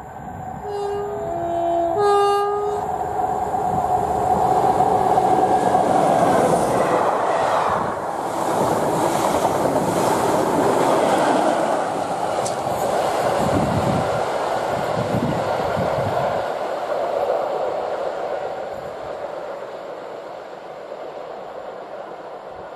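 Diesel locomotive's two-tone horn sounding a short run of high and low notes in the first few seconds, then a locomotive-hauled passenger train passing close: diesel engine running and wheels on the rails, loud for several seconds, then fading.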